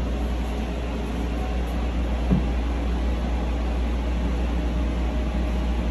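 Steady running noise heard inside the car of a driverless, rubber-tyred airport people mover travelling through its tunnel: a low rumble with an even hiss above it. A single short knock comes a little over two seconds in.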